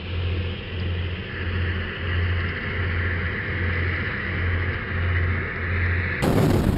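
Small speedboat running fast, its engine drone mixed with water and wind rush and a low pulsing about twice a second. About six seconds in the sound turns suddenly much louder and harsher as the hull runs into the rocky shallows.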